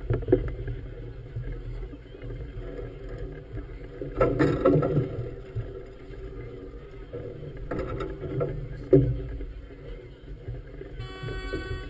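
Choppy water slapping against the hull of a moored floating clubhouse, in irregular surges, strongest about four to five seconds in and again near nine seconds, over a steady low rumble.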